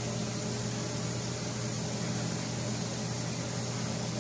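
Steady mechanical hum with an even hiss, unchanging throughout and with no distinct knocks or strokes.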